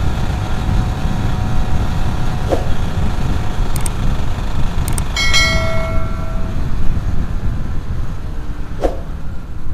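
Wind rushing over the microphone and the running engine of a Yamaha F1ZR two-stroke motorcycle on the move. A horn honks for about a second a little past the middle.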